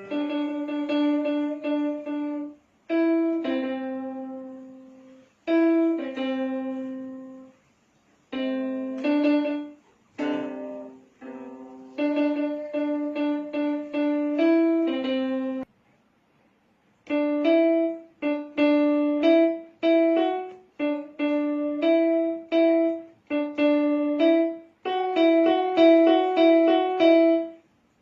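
A single-line melody played note by note on a piano keyboard, in short phrases that stop and start again with brief gaps: a tune being practiced phrase by phrase.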